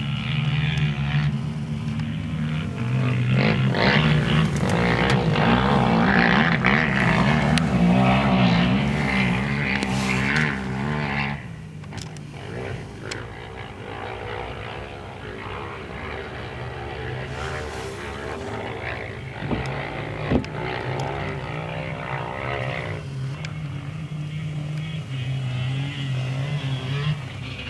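Race quad engines, among them a Honda TRX250R's two-stroke single, running under throttle with pitch rising and falling. It drops suddenly to a quieter, steadier engine drone about eleven seconds in, with one sharp click later.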